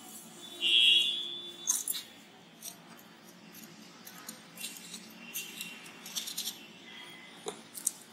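Small scrapes and clicks of fingers and a khurpi (Indian hand hoe) working loose potting soil around a freshly planted portulaca cutting. A short high-pitched call sounds about a second in, louder than the rest.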